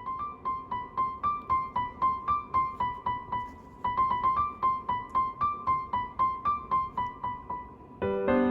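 Background music: a light keyboard melody of short repeated notes, about three to four a second, with fuller chords coming in near the end.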